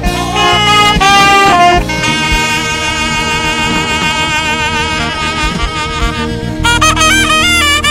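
Saxophone playing a melody over band accompaniment: a short phrase, then a long note held with vibrato for several seconds, then a quick run of stepping notes near the end.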